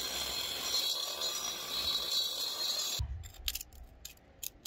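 Angle grinder fitted with a dust shroud and hooked to a shop vacuum, both running steadily with a high hiss as they grind old paint off a concrete roof. About three seconds in this cuts off, and a hand scraper scrapes and clicks on the concrete as it lifts loose paint flakes.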